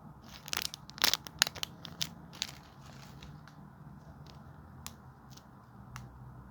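A homemade squishy being squeezed and handled, crinkling and crackling, busiest in the first two and a half seconds, then only a few scattered clicks.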